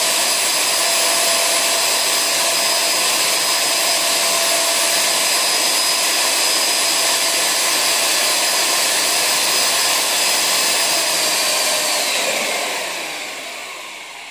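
Handheld electric drill with a paddle mixer running steadily, stirring a tub of paint until it is smooth and fluid. About twelve seconds in it is let off and winds down with a falling whine.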